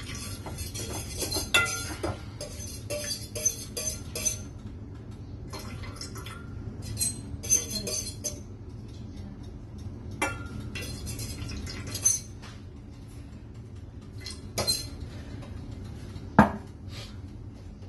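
Metal spoon stirring a thin corn flour and water mix in a metal pot, clinking and scraping against the pot in quick runs for the first eight seconds or so. Then a few separate clinks follow, the loudest a sharp knock near the end.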